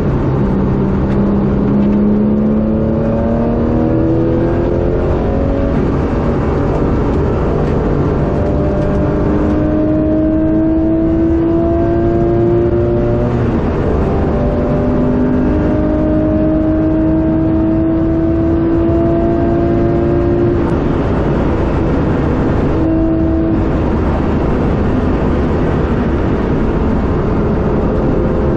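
Porsche 996 GT3 RS's 3.6-litre naturally aspirated flat-six, heard from inside the cabin, pulling hard through the gears. The pitch climbs steadily through each long pull and drops back sharply at each upshift, over a constant rush of road and wind noise.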